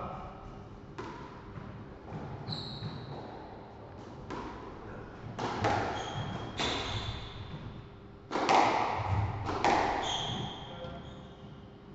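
Squash rally: the ball struck by rackets and smacking off the court walls about every second or so, each knock ringing briefly in the court, with short high squeaks from the players' shoes on the wooden floor.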